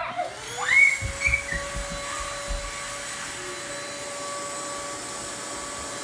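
Small red corded Dirt Devil vacuum switched on, its motor spinning up with a quick rising whine just after the start and then running at a steady pitch.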